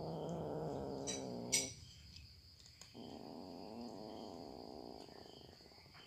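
Cats eating dry kibble from a shared bowl, one of them giving a low, rumbling purr in two stretches of about two seconds each. A sharp click comes about one and a half seconds in.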